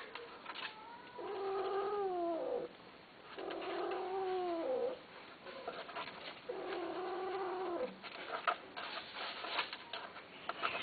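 Persian cat caterwauling: three long, drawn-out yowls, each about a second and a half and sliding down in pitch at the end. These are mating yowls. A few light clicks and rustles follow near the end.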